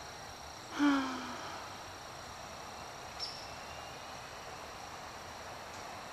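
Outdoor ambience with a steady high-pitched tone throughout, and a short voice-like sound falling slightly in pitch just under a second in.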